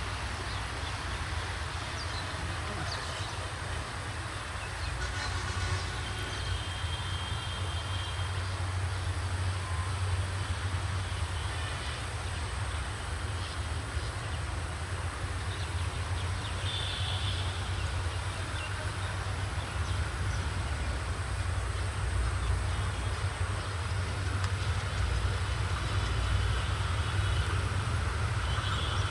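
Diesel locomotive approaching slowly at the head of an express train, its engine's low rumble steady and slowly growing louder as it nears.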